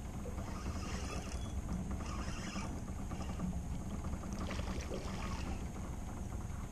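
Steady low rumble and hiss of a fishing boat sitting out on the lake, with faint rustles now and then.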